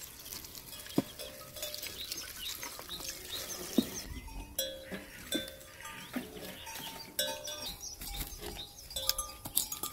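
Small bells on goats clinking and ringing irregularly. Two sharp knocks come about a second in and just before four seconds.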